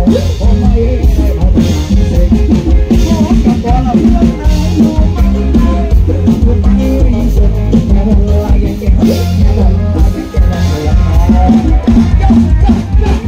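Live Thai ramwong sam-cha dance music from a band on a sound truck, played loud through a large speaker stack: a drum kit keeps a steady dance beat over heavy bass.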